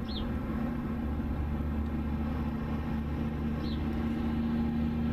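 Steady low mechanical hum with a held tone that grows slightly stronger toward the end. A short high chirp sounds near the start and again a little over halfway through.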